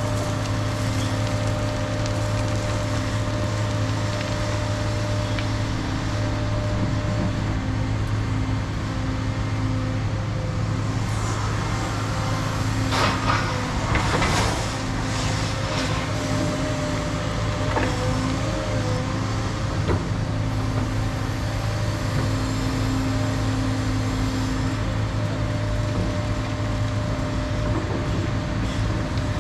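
Cat 335 Next Gen excavator running steadily under work, its diesel engine humming with a hydraulic whine. About halfway through comes a run of clattering knocks, and the whine briefly shifts in pitch.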